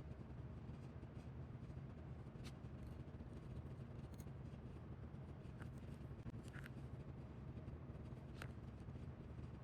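A steady low hum with a few faint, short clicks and scrapes from small die-cast car parts and tools being handled.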